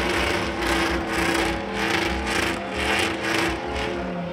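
Pickup truck doing a burnout: engine revving hard with the rear tyres spinning, the sound surging and easing about two to three times a second.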